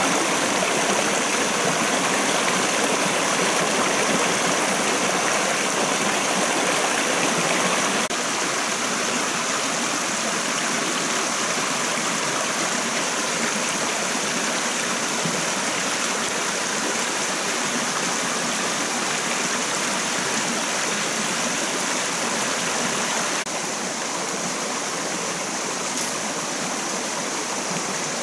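A shallow rocky forest stream rushing over stones: a steady, even water noise that steps down slightly in level about eight seconds in and again about twenty-three seconds in.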